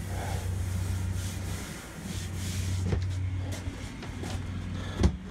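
A steady low hum with faint rustling, and a single sharp knock near the end.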